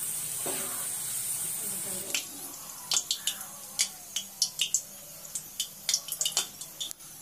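Carrot strips deep-frying in hot oil: a steady sizzle for about two seconds, then a quieter hiss with many sharp crackles and pops as the strips are lifted out on a ladle.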